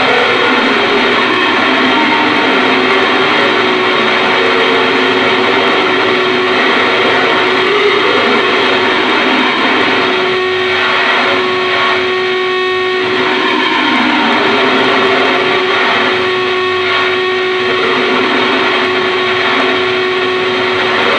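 Theremin run through a chain of effects pedals, giving harsh noise: a dense, loud wall of distorted noise over a steady held tone. About halfway through and again later, the texture breaks into rapid pulsing.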